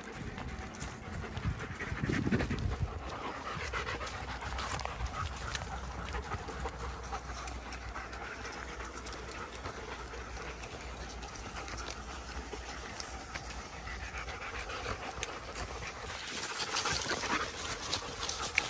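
German shepherds panting as they run close by, with footfalls rustling and ticking through dry leaves and pine needles; louder near the end as a dog comes right past.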